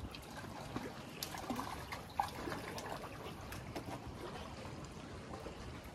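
Water lapping and trickling against a concrete bridge abutment, with scattered small clicks.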